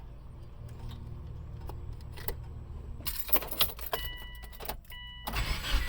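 Car keys jangling at the ignition of a Subaru Forester, then two short dashboard warning chimes, and the starter just beginning to turn the engine at the very end, as a start is tried with the MAP sensor unplugged.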